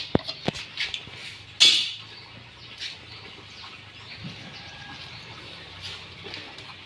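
A wooden shipping crate being handled on a concrete floor: a few sharp knocks in the first second, a louder brief scrape just under two seconds in, then only faint shuffling.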